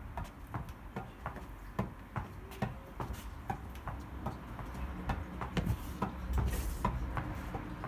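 Tennis ball volleyed against a wall with a racket: a regular run of sharp pops, about two a second, as the strings strike the ball and the ball rebounds off the wall.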